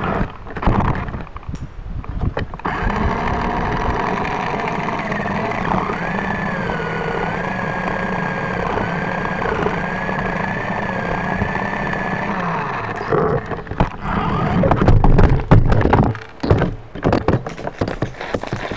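A motor or engine running steadily for about ten seconds, with a slightly wavering high whine over a low hum, then dropping in pitch as it stops. After it, loud irregular knocks and rubbing from the camera being handled and tipped toward the ground.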